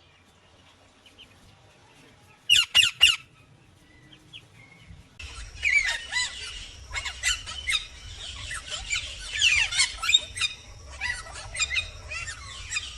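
Indian ringneck parakeets calling. About two and a half seconds in come four loud, harsh squawks in quick succession. From about five seconds on there is a busy, unbroken run of chirps and squawks over a low steady hum.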